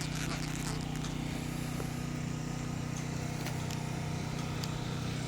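An engine running steadily at idle, a constant low hum with a few faint ticks over it.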